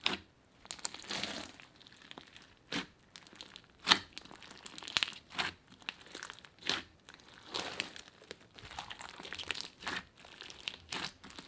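Slime being kneaded and squished by hand, giving irregular sharp pops and crackles about once a second over a soft rustle.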